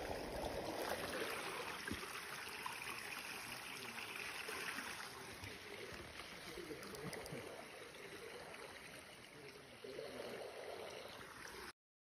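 Fast-flowing, muddy river water rushing and lapping around a bamboo raft as it crosses the current. The sound cuts off abruptly near the end.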